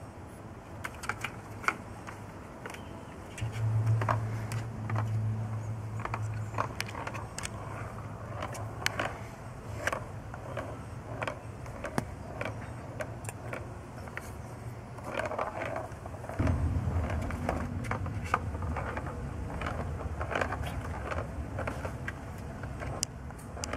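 Kittens playing on wooden decking around a plastic ball-track toy: scattered light clicks, taps and scrapes of paws, claws and plastic. A low steady engine hum rises briefly a few seconds in, then comes back about two-thirds of the way through and stays.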